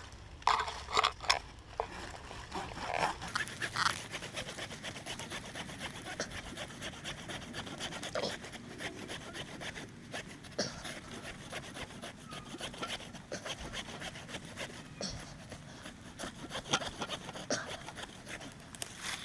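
A hand saw cutting through the trunk of a small cedar tree in a steady run of rasping strokes, a little louder in the first few seconds.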